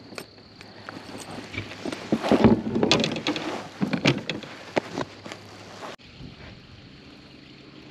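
Clatter of a just-caught crappie being swung aboard and handled in a fishing kayak: a run of knocks, taps and rustles, loudest about two to three seconds in. It drops abruptly to a quieter steady background about six seconds in.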